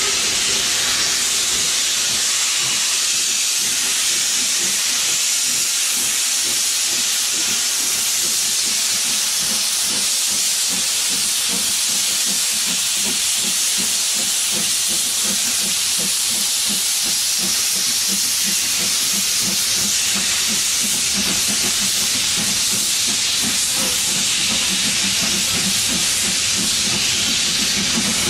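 Steam hissing steadily from the standing steam locomotives, LMS Black 5 45407 and BR Standard 4 76079, with a low rumble building in the last few seconds.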